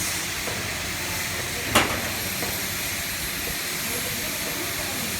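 CNC fiber laser cutting machine running with a steady hiss, and one sharp knock a little under two seconds in.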